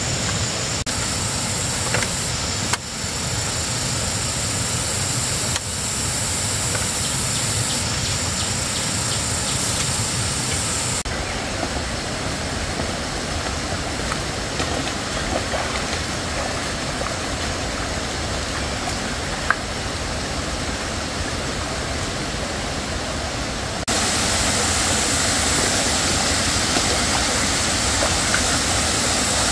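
Steady rush of stream water running over rocks, louder for the last five or six seconds. For the first ten seconds or so, a thin, steady high whine sits over it.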